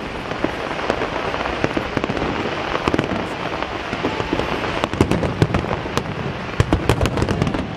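Fireworks display: aerial shells bursting one after another over a dense, continuous crackle, with the sharp bangs coming thicker and louder from about five seconds in.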